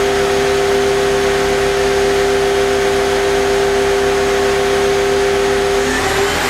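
Hyundai Kia SKT15 CNC lathe's main spindle running steadily at 4,500 rpm, a loud whine with several steady pitches over a mechanical hiss. The tone changes about six seconds in as the spindle speed shifts.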